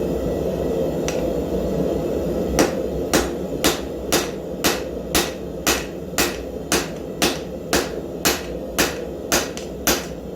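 Hand hammer blows on the end of a hot 5160 coil-spring steel bar, upsetting it to thicken the chisel head: steady strikes about two a second, starting about two and a half seconds in, over a continuous roar.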